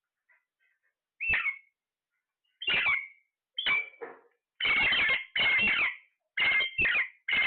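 A pet parrot calling: about eight short squawking calls in a row, starting about a second in and coming closer together toward the end.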